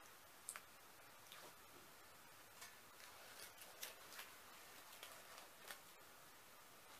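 Near silence with faint scattered clicks and scratches, about eight in all: fingernails picking at the edge of the blue protective plastic film on a steamer plate, trying to start peeling it off.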